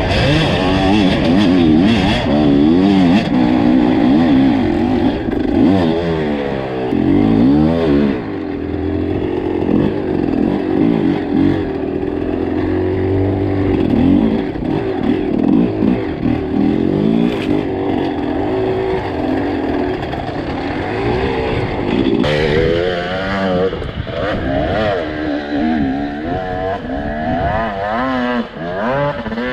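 Two-stroke enduro dirt bike engine revving up and down again and again in short blips. It runs steadier and lower for a stretch in the middle, then revs in quick blips again over the last several seconds.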